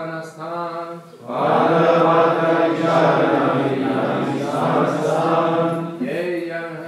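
Call-and-response recitation of a Bengali verse. A man's single voice chants a line, then about a second in a group of voices answers in unison, louder. A single voice takes up the next line near the end.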